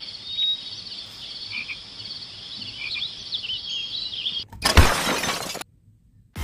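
A faint high chirping and trilling chorus over a steady hiss, like a night-time chorus of insects or frogs. About four and a half seconds in, it is cut by a loud crash lasting about a second.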